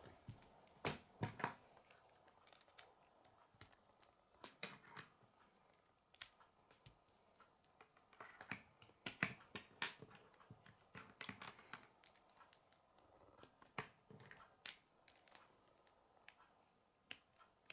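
Faint, irregular clicks and snaps of K'nex plastic rods and connectors being handled and pressed together, with a few scattered in clusters and long gaps between them.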